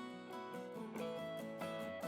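Relaxed background music led by plucked acoustic guitar, with notes picked in a steady melodic pattern.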